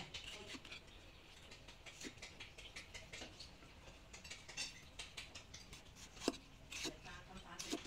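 Small meat cleaver forged from leaf-spring steel slicing through tomatoes and tapping on a wooden chopping block: a run of faint cuts and soft knocks, with a sharper knock about six seconds in and a couple more near the end.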